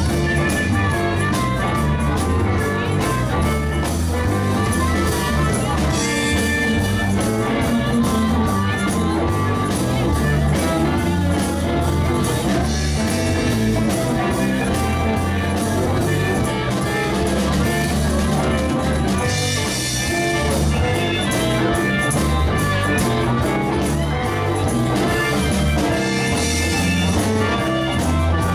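Live band playing a song: bass, guitar and drums keep a steady beat.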